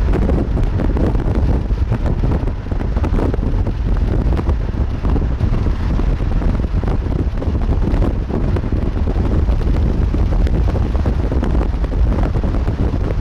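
Strong wind buffeting the microphone: a loud, steady low rumble with gusts.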